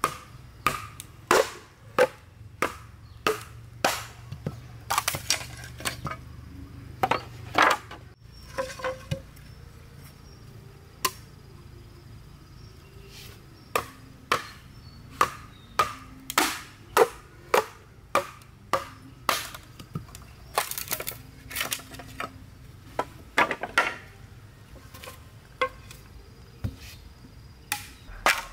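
Repeated sharp knocks of a blade chopping into an upright green bamboo pole to split it into slats, about one or two blows a second. The blows come in two runs, with a lull of a few seconds in the middle.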